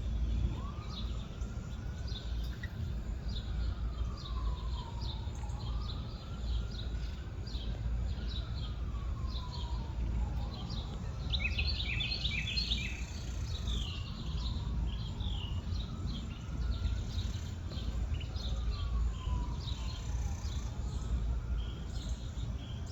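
Small birds chirping and twittering with short, high notes, in a brief busier flurry about halfway through. Under it runs a steady low rumble and a faint, slow wail that rises and falls again every four to five seconds.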